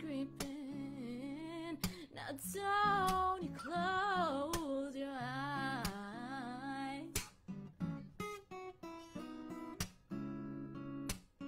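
A woman singing with vibrato over a strummed acoustic guitar; her voice stops about seven seconds in and the guitar strumming carries on alone.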